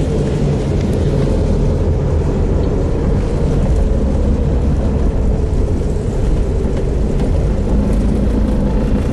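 Car running steadily on the road: a continuous low engine drone mixed with road and wind rumble, unchanging throughout.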